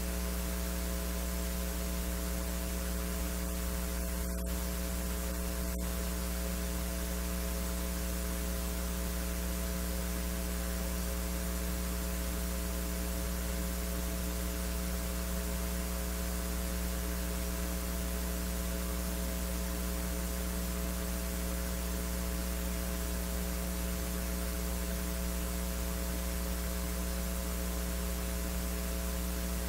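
Steady electrical mains hum with a buzz of higher overtones and a hiss over it, from the recording line. No speech or music is heard.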